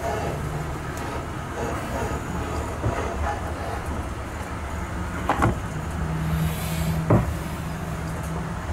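Steady rumble of a moving vehicle heard from inside, with a low hum and a few sharp knocks about five and seven seconds in.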